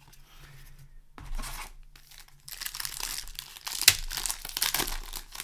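A Magic: The Gathering set booster pack's foil wrapper being torn open and crinkled, with a sharp rip about four seconds in.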